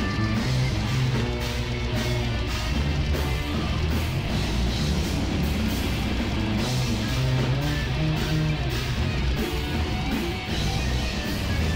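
Heavy metal band playing live: distorted electric guitars and bass over a fast drum kit, loud and continuous.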